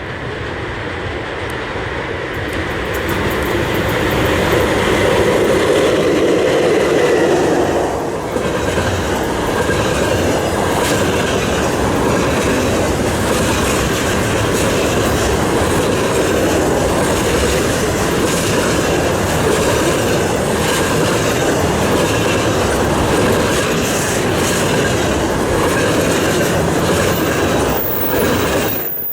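VL10U DC electric locomotive and its container freight train passing close by at speed. The locomotive's heavy rumble swells to its loudest a few seconds in, then the container wagons roll past with a steady rumble and the clickety-clack of wheels over rail joints, easing off near the end.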